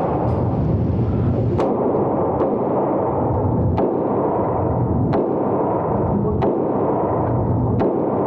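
Gunshots at a shooting range: about seven shots at a steady pace, roughly one every second and a quarter, over a constant loud low rumbling noise.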